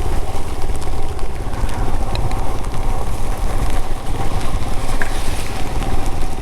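Royal Enfield Himalayan's 411 cc air-cooled single-cylinder engine running steadily while the motorcycle is ridden along.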